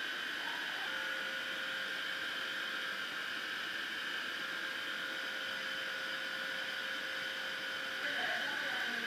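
Electric oven running with its grill element on, a steady hum and hiss with a faint steady tone through most of it.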